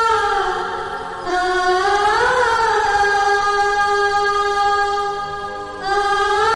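Background music: a voice holding long sung notes that bend slowly down and back up, with no break for breath.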